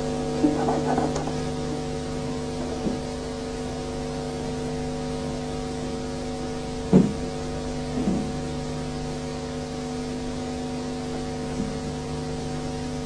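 Steady electrical hum and hiss with a few scattered thumps, the loudest about seven seconds in.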